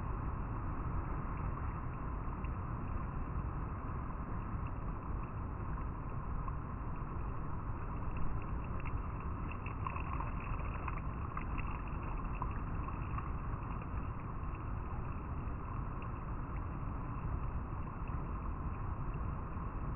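River water flowing and rippling over rocks: a steady, even rushing.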